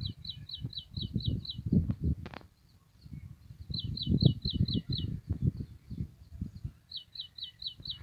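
A small songbird singing three quick runs of six or seven high, down-slurred notes: one at the start, one about four seconds in, and one near the end. A low, irregular buffeting rumble runs underneath and is the loudest sound, with a single sharp click about two seconds in.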